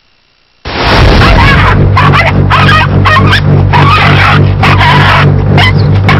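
Dogs barking and yelping over music with a steady low hum, all starting suddenly just over half a second in.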